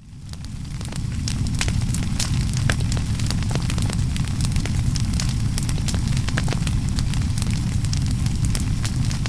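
Fire burning, with dense crackling and popping over a steady low rumble; it fades in over about the first second.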